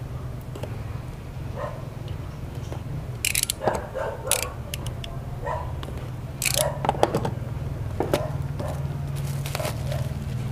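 Cardboard box being slit with a box cutter and opened, and plastic bubble-wrap packing pulled out: scattered short scrapes and crackles over a steady low hum.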